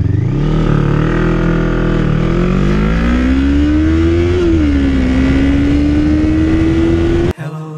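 Motorcycle engine accelerating hard under full throttle, mixed with wind noise. Its pitch climbs steadily, drops at an upshift about four and a half seconds in, then climbs again. The sound cuts off suddenly near the end.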